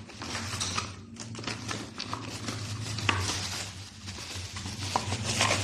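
Light clattering and scraping of hard objects being handled, over a steady low hum.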